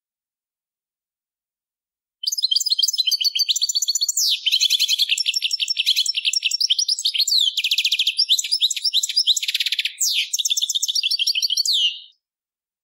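European goldfinch (Italian cardellino) singing one continuous song phrase of about ten seconds: rapid high twittering and trills with quick sweeps and a couple of buzzy stretches, ending on a falling note.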